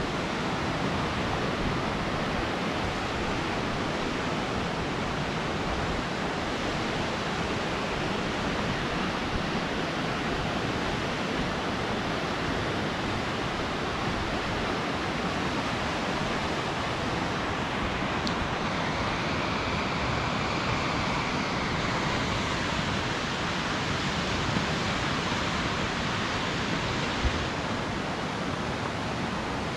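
Fast whitewater of the Baspa River rushing past in a steady, unbroken stream of water noise.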